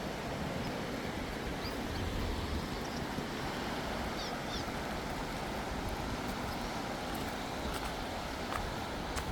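Steady rush of the Klamath River flowing, with a few brief high chirps from swallows about two seconds and four and a half seconds in.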